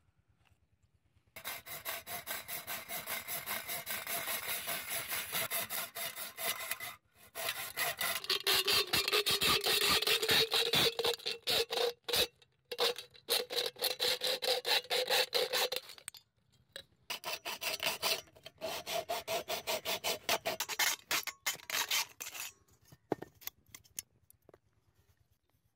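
Hacksaw cutting through an aluminium spray can: rapid back-and-forth strokes with a steady ringing note, stopping briefly three times and ending a few seconds before the close.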